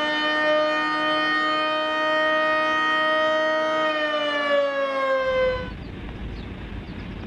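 Federal Signal EOWS 612 electronic outdoor warning siren sounding its steady Alert tone, a chord of several held pitches. About four seconds in the pitch slides down and the tone fades out, as on a mechanical siren's wind-down, and only background noise is left.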